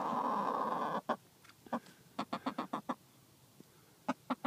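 Domestic hens clucking. A louder drawn-out sound fills the first second, then come short clucks in quick runs, a burst of about six near the middle and three more near the end.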